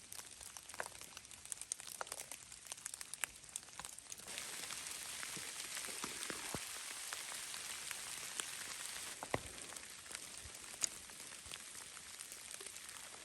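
Heavy rain falling: an even hiss with many scattered drops ticking close by, growing a little louder for about five seconds in the middle.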